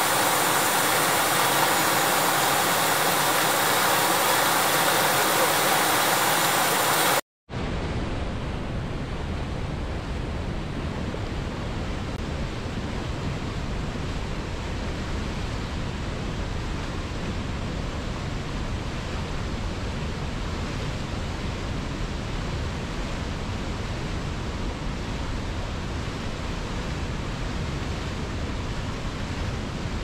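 Steady rush of fast-flowing river water. About seven seconds in it cuts out for a moment, and a quieter, deeper, steady rush of rapids below a waterfall takes over.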